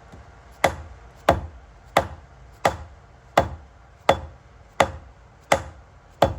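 Steady, evenly spaced mallet taps, nine strikes at about three every two seconds, each with a short ring, driving a Berkeley jet pump onto its splined driveshaft. The snug splines are not sliding home.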